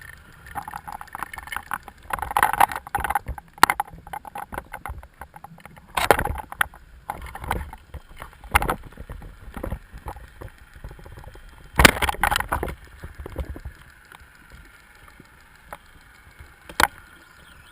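Underwater sound from a spearfishing dive: water noise with dense crackling clicks and a few sharp knocks, the loudest about six and twelve seconds in.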